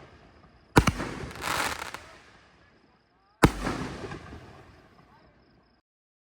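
Two loud reports from 5-inch canister firework shells, a few seconds apart, each trailing off in a long fading rumble, with a brief crackling swell after the first. The sound cuts off suddenly near the end.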